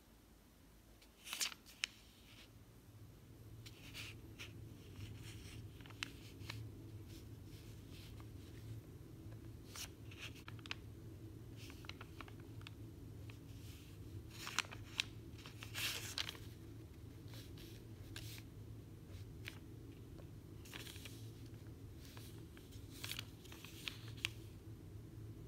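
Short scratchy rubs of a drawing tool on sketchbook paper, coming in scattered clusters. Under them is a steady low hum that comes in about two seconds in.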